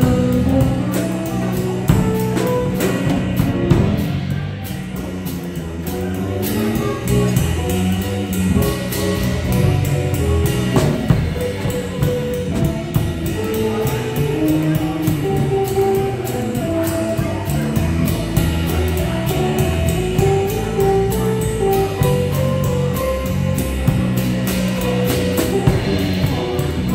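Live jazz played by electric guitar, electric bass and a Noble & Cooley drum kit: the guitar plays moving single-note lines over the bass, with cymbals and drums keeping time throughout.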